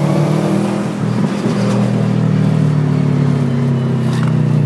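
Subaru WRX's turbocharged flat-four engine running under load, heard from inside the cabin. The engine note holds steady, with a brief dip about a second in.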